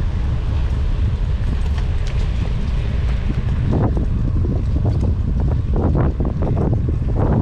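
Wind buffeting the microphone over the low rumble of a bicycle rolling along wet brick paving. Clusters of short knocks and rattles come about four seconds in and again near the end.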